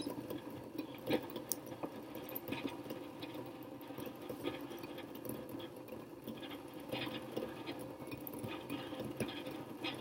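Water heating in glass beakers on electric hot plates just short of the boil: a faint steady hiss and hum with scattered small ticks and crackles.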